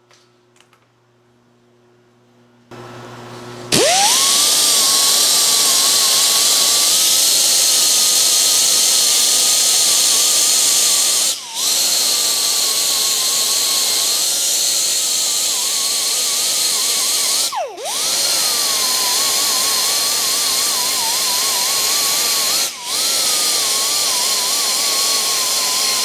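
Handheld power grinder spinning up about three seconds in and running at high speed, its pitch wavering as it works the metal. It dips briefly three times.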